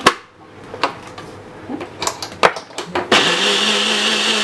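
Plastic knocks and clicks as a blender cup is seated on a compact personal blender's base. About three seconds in, the blender motor starts abruptly and runs steadily, its pitch rising briefly before settling, as it blends cooked rice and its cooking water.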